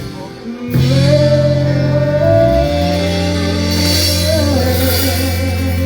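Live soul band music: after a brief dip, a singer holds a long note over sustained bass and chords, with a wavering held note near the end.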